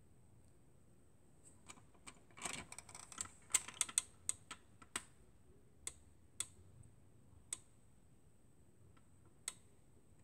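Light clicks and taps from hands handling a 1:18 scale diecast model car: a quick flurry about two to five seconds in, then a few scattered single clicks.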